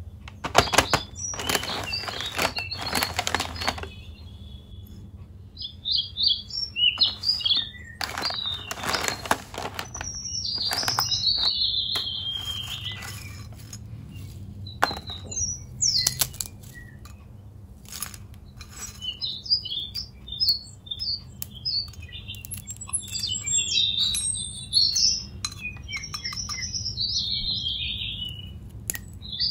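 Crackling from handling a plastic snack packet and dry crunchy soya sticks, loudest in two bursts near the start and about eight seconds in, with scattered clicks after. Small birds chirp repeatedly throughout, in short falling calls.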